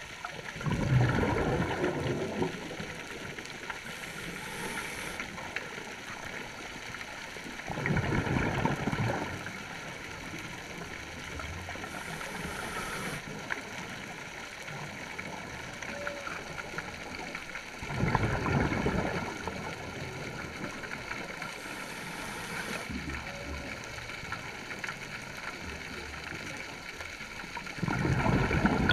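Scuba regulator breathing heard underwater: a rumbling burst of exhaled bubbles about every ten seconds, four in all, with a fainter high hiss of inhalation between them.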